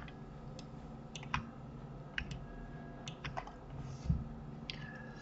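A handful of short clicks from a computer mouse and keyboard, spaced irregularly, over quiet room tone.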